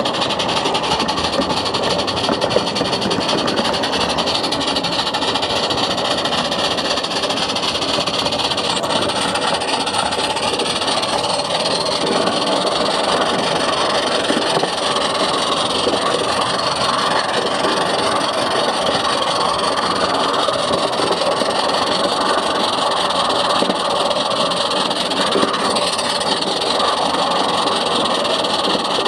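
A 16 mm scale live-steam garden railway train running, heard close up from on board: a steady hissing, rushing noise with no clear beat.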